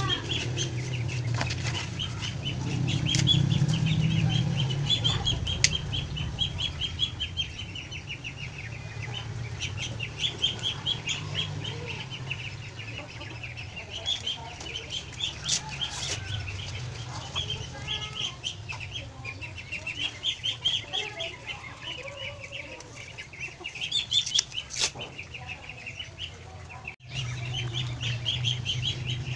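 Birds chirping in rapid, continuous runs with chickens clucking, over a low rumble that swells a few seconds in. A few sharp clicks stand out, and the sound cuts out for an instant near the end.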